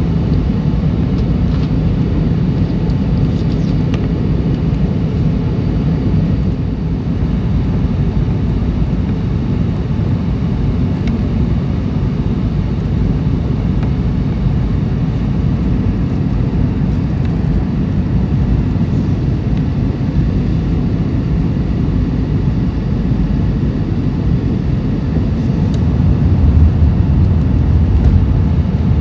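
Steady cabin noise inside an Airbus A320 in flight: a low roar of jet engines and rushing air, heard from a seat beside the wing. A deeper low hum swells and grows slightly louder near the end.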